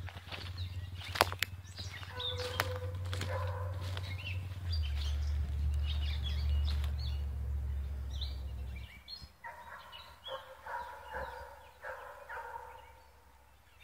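Birds calling and chirping in woodland, with a few sharp clicks in the first three seconds and a low steady rumble that stops about nine seconds in.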